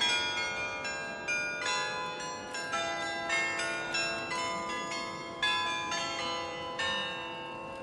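Carillon bells in the tower of Delft's Nieuwe Kerk playing a tune: many bells struck in quick succession, each one ringing on under the next.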